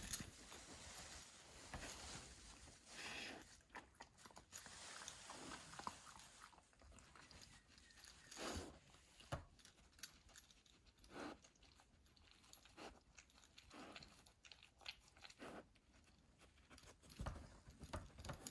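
Faint cloth rustling and chewing as a Labrador puppy mouths and paws at a knotted cotton tea towel, with short irregular scuffs scattered throughout.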